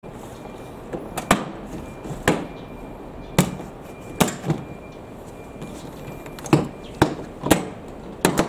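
Retaining clips of a 30-series Toyota Alphard/Vellfire back door trim panel snapping loose one after another as the panel is pulled off by hand: about nine sharp snaps at uneven intervals.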